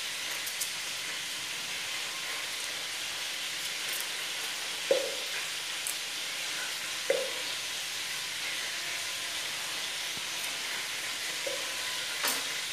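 Veal pieces sizzling steadily as they brown in oil and butter over medium heat. A few light clicks and two brief louder sounds, about five and seven seconds in, come from garlic cloves being halved with a knife over the beaker.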